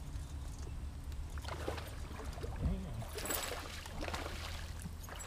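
Water splashing and trickling around a bass boat over a steady low hum, the splashing busiest from about a second and a half in and loudest a little past the middle.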